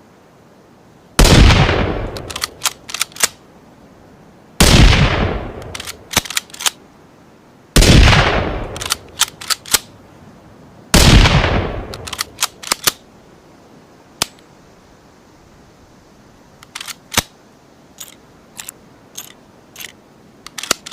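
Four loud rifle shots from a Ruger American rifle sound effect, about three seconds apart, each with a short fading tail and followed by a quick run of sharp clicks. Scattered fainter clicks follow in the last several seconds.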